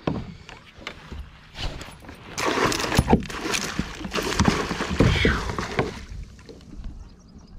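Water splashing hard as a northern pike thrashes at the surface right beside a kayak while a landing net is swept at it. The splashing is heaviest from about two to six seconds in, with scattered knocks.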